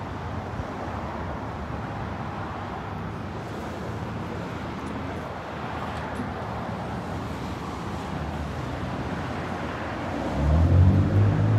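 Steady outdoor traffic noise, joined about ten seconds in by a louder, steady low engine hum that holds to the end.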